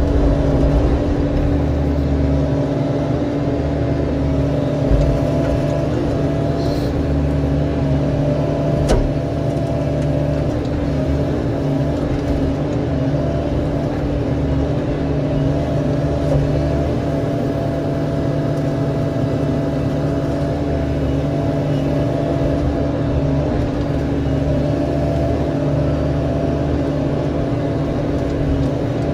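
Construction machine engine running steadily at a constant speed, close by, with a couple of faint knocks in the first third.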